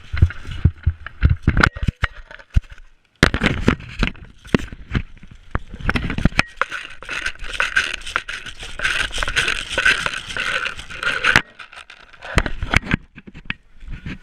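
Scraping and crunching with many sharp clicks and knocks, the noise of movement and gear rubbing close to a body-worn camera; it cuts out suddenly about three seconds in and starts again.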